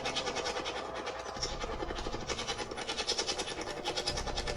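Spirit box, a radio scanning rapidly through stations, giving out static chopped into quick, even pulses many times a second.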